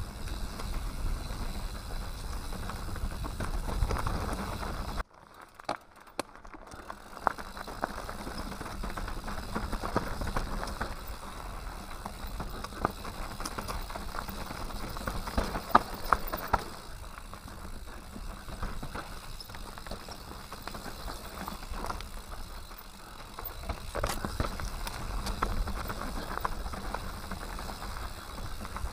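Mountain bike riding down a rocky singletrack, heard from on board: tyres crunching over stones, with the frame and chain rattling and knocking sharply and often, over a low rumble. About five seconds in, the sound drops out almost completely for a moment, then builds back.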